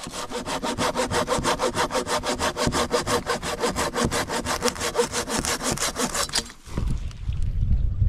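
Hand saw cutting through deadwood in fast, even strokes, stopping abruptly about six and a half seconds in. A low rumble follows near the end.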